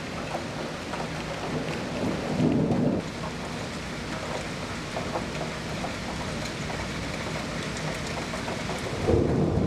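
Rain falling steadily in a thunderstorm, with thunder rumbling; two louder low swells come about two and a half seconds in and near the end.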